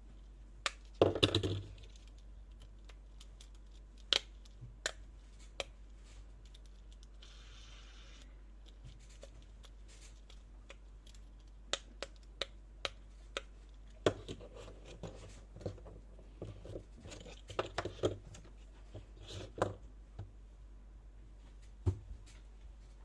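Fidget toys being handled: scattered sharp clicks and taps with bursts of rustling and scraping, loudest about a second in and busiest in the second half.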